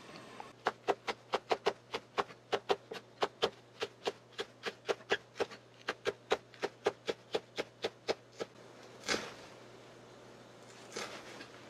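Chef's knife chopping a green onion on a wooden cutting board: a steady run of quick strokes, about four a second, that stops about three quarters of the way through. A couple of separate knocks follow.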